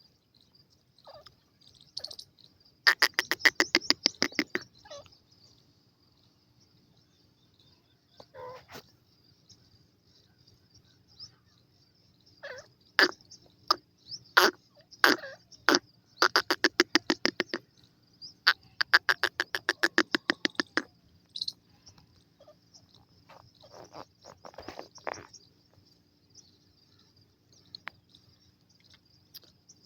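Francolin (teetar) calling: several loud bursts of rapid, sharp repeated notes with quiet pauses between them. A faint steady high tone runs underneath.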